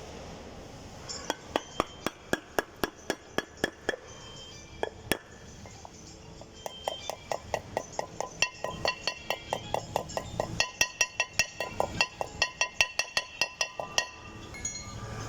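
Rapid hammer blows on metal, each with a short ringing tone: a run of about three a second, a pause of about a second and a half, then a faster run of about five a second that stops near the end.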